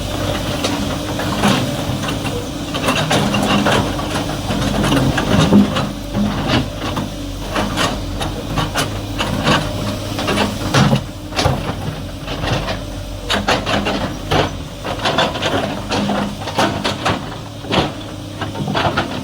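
Heavy excavator's diesel engine running steadily, with frequent short clanks and knocks over it that come more often in the second half.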